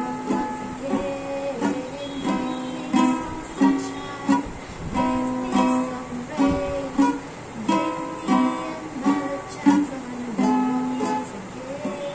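Ukulele strummed by a beginner, with a woman singing along.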